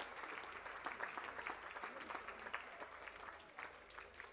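Audience applauding, dying down over the few seconds.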